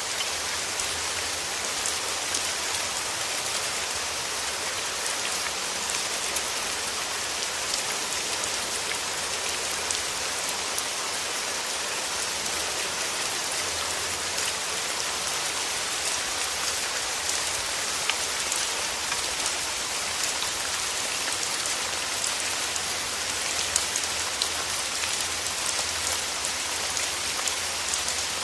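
Steady rain falling on a surface, an even hiss sprinkled with many small drop ticks.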